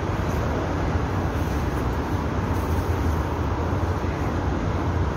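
Steady low rumble with no distinct events: the background noise of an open-air railway platform.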